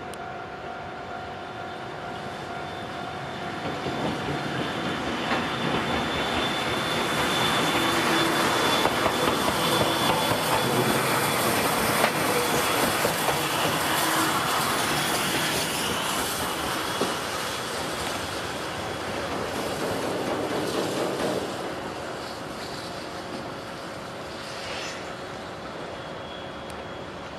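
JNR Class C58 steam locomotive C58 363 running past on rails. The noise of its wheels and running gear swells to a peak about halfway through, then fades as it draws away.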